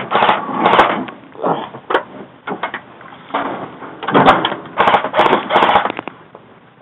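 Airsoft guns firing in short rapid bursts, a rattling clatter of shots, mixed with knocks from the shooter moving about. The heaviest bursts come at the start and again about four to six seconds in.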